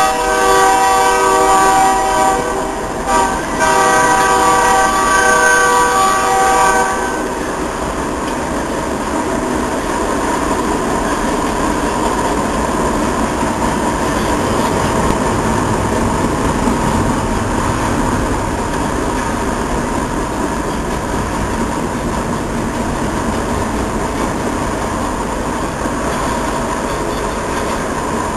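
A locomotive's multi-note air horn blows two long blasts with a brief break between them, ending about seven seconds in. A double-stack intermodal freight train then rolls past at speed with a steady rumble of wheels on rail.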